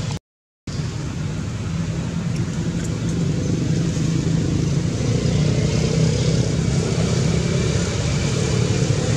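Steady low motor-vehicle engine rumble with a hiss over it, growing slightly louder about three seconds in; the sound drops out to silence for about half a second just after the start.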